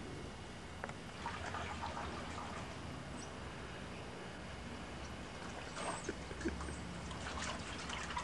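Faint splashing and trickling of water in a plastic dog water bowl, with a dog drinking from it and hands in the water.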